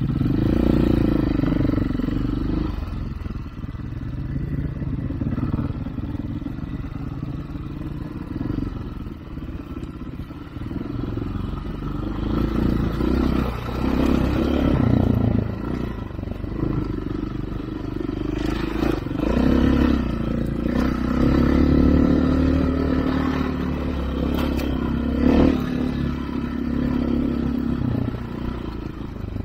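Husqvarna dirt bike engine running under way, its pitch rising and falling with the throttle, with a few short knocks and rattles from the bike over rough ground.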